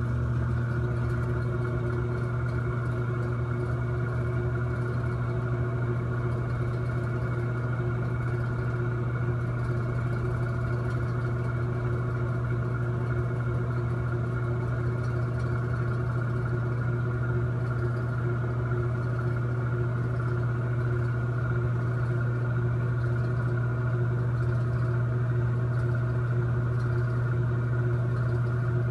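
Noisy bathroom exhaust fan running steadily, a strong low hum with a few fainter steady whining tones above it.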